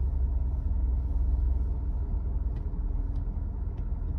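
A deep, steady rumble heard from inside a car, low and long enough that it is taken for a train and felt through the car.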